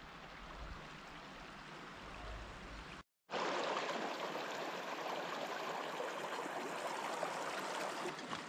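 Steady rushing noise like running water. It cuts out abruptly for a moment about three seconds in and comes back louder.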